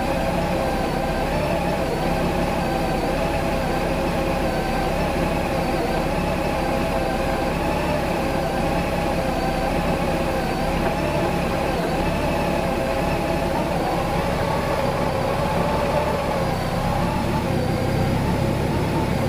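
Honda Gold Wing GL1800's flat-six engine idling steadily. The owner calls it a rough idle and ties it to fuel pump voltage surges.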